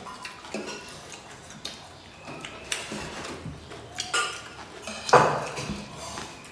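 Close-up eating sounds: fingers scooping rice and food off metal plates, with small scattered clinks and taps, chewing and lip sounds. A short louder noisy burst comes about five seconds in.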